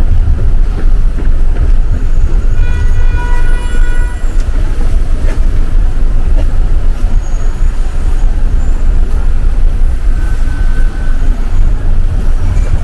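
Loud, steady low rumble of city traffic. A horn sounds once about two and a half seconds in and is held for roughly a second and a half.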